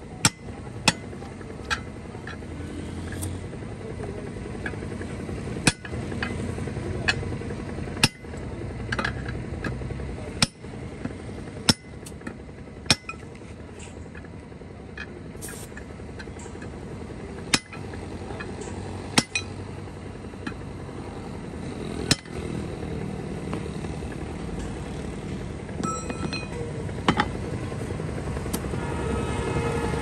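A hand hammer striking a steel tyre bar wedged between a truck tyre and its steel wheel rim, working the tyre bead off the rim. About a dozen sharp metallic clanks, spaced irregularly from under a second to several seconds apart.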